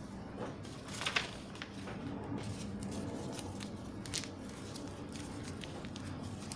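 Crinkling and rustling of a fidget-toy blind bag being handled and opened, with a few sharp crackles about a second in and once about four seconds in, over a steady low background hum.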